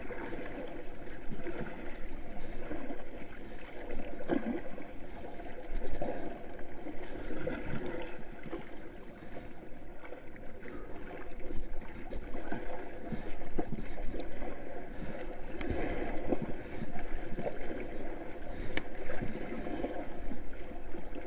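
Sea water splashing and lapping against a large floating board, in uneven swells every second or two.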